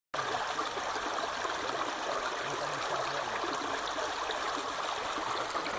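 Steady rush of water flowing in a small stream.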